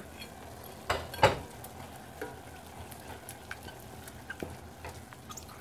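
Wooden spoon stirring minced chicken and pounded chilies in a stainless steel saucepan on the heat, with the meat sizzling steadily. Two sharp knocks, the spoon against the pot, come about a second in.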